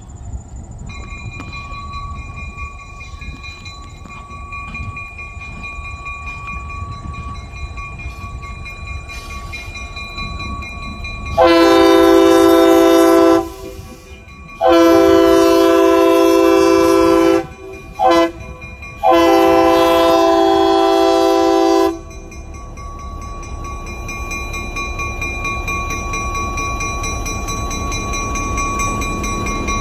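A GP9R diesel locomotive's air horn sounds the grade-crossing signal: two long blasts, a short one, then a long one, starting about eleven seconds in. Under it a crossing-signal bell rings steadily and the locomotive's diesel engine rumbles, growing louder as it draws close.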